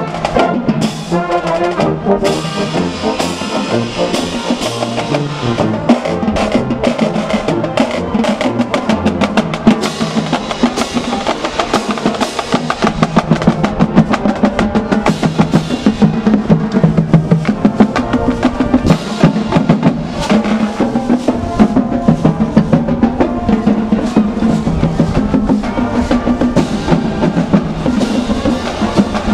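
Marching band percussion playing a steady marching cadence on snare drums, bass drums and cymbals. Brass notes fade out within the first couple of seconds.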